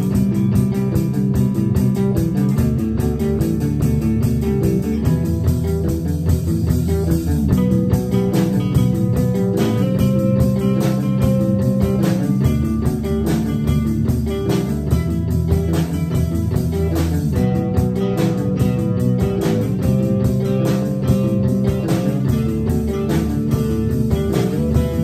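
A rock band playing an instrumental passage: guitar over bass guitar, loud and continuous, with sharp regular hits throughout and no singing.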